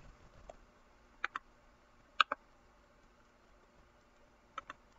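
Computer mouse clicking: three quick double clicks, each a press and release about a tenth of a second apart, spread over a few seconds, as a right-click menu is opened and Rename chosen.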